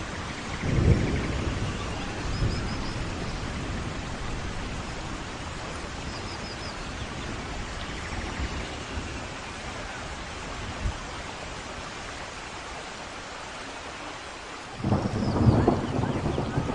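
Thunderstorm in a forest: steady rain falls throughout. Thunder rumbles about a second in, and a louder rolling crash of thunder breaks in suddenly near the end.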